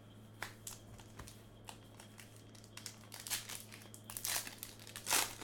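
Crinkling and tearing of a trading-card pack wrapper being opened and handled, in irregular rustling strokes that grow denser and louder in the second half.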